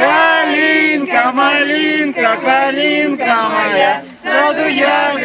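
Voices singing a melody, in held notes and phrases broken by short pauses, the longest about four seconds in.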